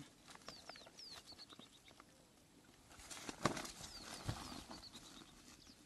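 A bird calling with short, high, downward-slurred chirps in quick runs, with a single sharp knock about halfway through.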